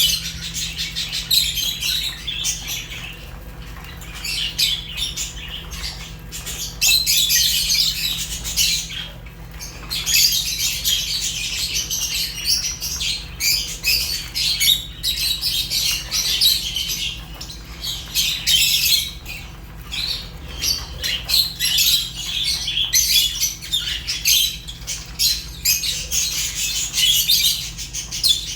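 A group of Fisher's and rosy-faced lovebirds chirping and chattering in a dense, near-continuous stream of high-pitched calls that swells and dips every few seconds. A faint low hum runs underneath.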